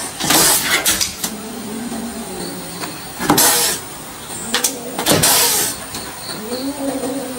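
A cat hissing at a dog in three sharp bursts, with a low wavering growl between them. A few short taps are heard as the dog paws at the car door and window.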